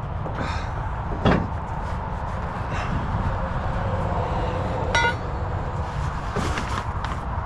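Nylon cargo strap webbing being rolled up by hand, with a sharp knock about a second in and a short metallic clink about five seconds in, over a steady low rumble.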